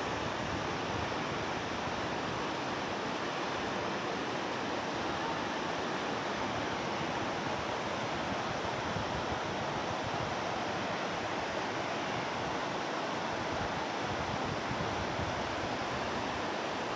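Fast-flowing river water rushing over rapids and rocks, a steady even wash of noise.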